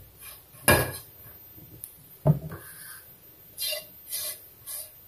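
A spatula knocking and scraping in a nonstick frying pan while roasted powder is stirred and scraped out. There is a sharp knock about a second in, a duller knock near the middle, and then three short scrapes about half a second apart near the end.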